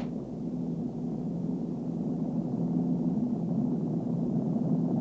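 A low, steady drone with a couple of held tones and almost nothing high-pitched.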